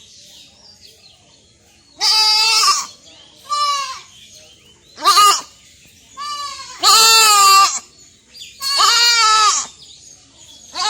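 Young goat (kid) bleating over and over: about six high, wavering calls, each under a second long, with short gaps between them.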